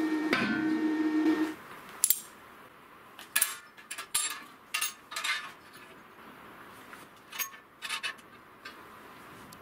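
A steady hum with several pitches stops about a second and a half in. Then comes a string of about ten sharp metallic clinks and clanks as small flat steel foot plates are handled and set under square steel-tube legs on a steel workbench.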